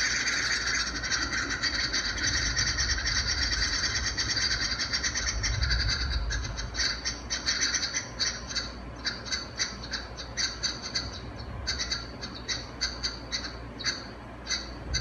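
Wren nestlings begging: a fast, continuous high chatter for about the first six seconds, then breaking up into separate short chirps, several a second.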